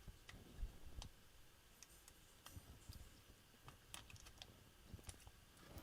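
Faint, scattered small clicks and taps from handling a model locomotive's small plastic parts and wires, over near silence.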